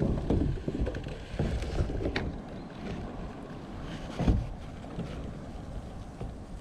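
Kayaks being handled: irregular hollow knocks and bumps, with one louder thump about four seconds in, over wind rumbling on the microphone.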